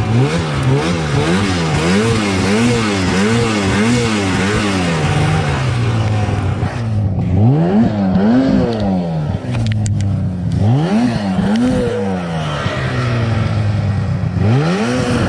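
Ski-Doo snowmobile engine revved up and down over and over as the sled is rocked forward through deep snow. It starts with quick, even blips and then goes to fewer, longer rev pulls, with a few sharp clicks about ten seconds in.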